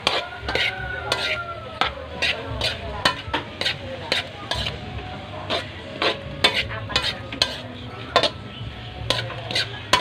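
Chopped vegetables being stir-fried in an aluminium wok: a spatula scrapes and clanks against the pan in quick, irregular strokes, about two a second, over a steady sizzle of frying.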